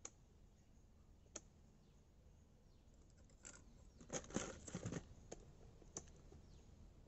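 Near silence, broken by a few faint, sharp clicks and a short patch of clicking and rustling about four seconds in.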